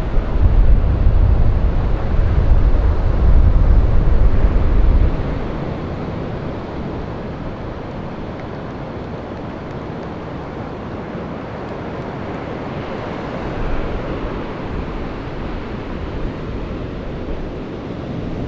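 Ocean surf: a heavy wave breaking and whitewater rushing, loud with a deep low rumble for about the first five seconds, then settling into a steadier, quieter wash of surf.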